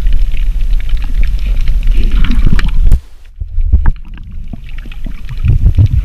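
Muffled water sloshing and rumbling against a waterproof camera housing just under the sea surface. The rumble drops away suddenly about halfway through, then comes back more faintly with a few scattered clicks.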